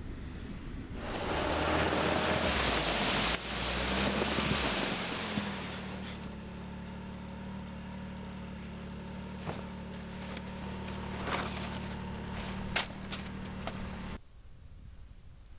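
A loud rushing hiss for the first few seconds, then a snowmobile engine idling steadily, with a few light knocks near the end, before the sound cuts off suddenly.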